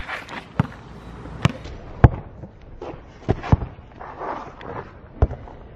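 Basketball bouncing on a concrete driveway: about six sharp, irregularly spaced bounces.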